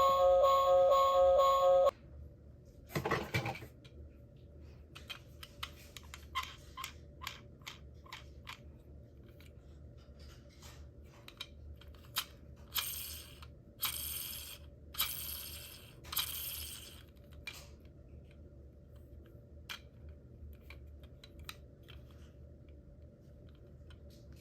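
Electronic siren from a toy emergency-vehicle minicar, a steady pulsing tone that cuts off suddenly about two seconds in. Then come scattered small plastic clicks and a few short scraping bursts as the toy car is handled and moved.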